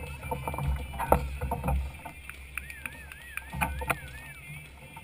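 Wind buffeting the microphone, with a few sharp slaps of hands striking a volleyball about a second in and again near the middle. A high, thin tone rises and falls about five times in quick succession.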